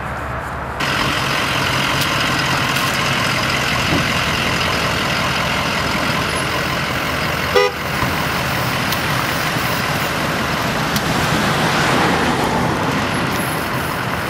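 Steady engine noise of emergency vehicles running at the scene, stepping up in level about a second in, with a short horn toot about seven and a half seconds in.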